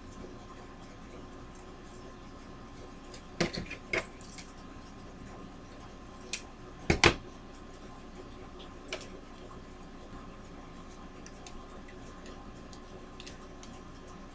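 Craft materials handled on a table: a few sharp clicks and clatters of small hard pieces, a cluster about three and a half seconds in and the loudest pair about seven seconds in, over a steady faint hum.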